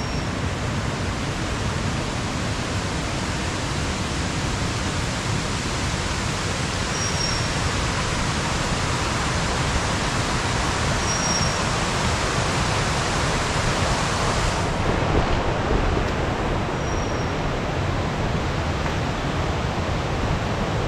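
Steady rushing of a rocky forest stream, growing slightly louder in the second half. A few brief, high chirps sound over it.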